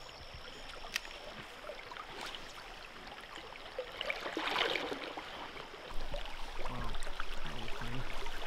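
Shallow river water flowing and rippling, with a few faint clicks, a short splash about four and a half seconds in, and the water noise growing louder about six seconds in.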